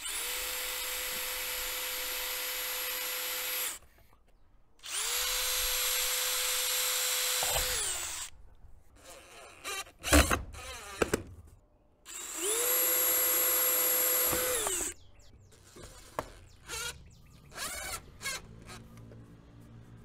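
Power drill drilling holes to mount a wooden birdhouse overhead. It runs in three bursts of about three seconds each, spinning up, holding a steady whine and winding down, with a few knocks between.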